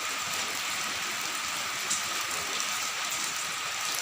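A steady, even hiss with a thin high tone running through it.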